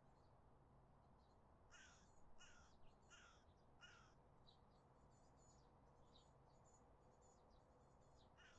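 A crow cawing faintly, four harsh calls about half a second apart, followed by small birds chirping.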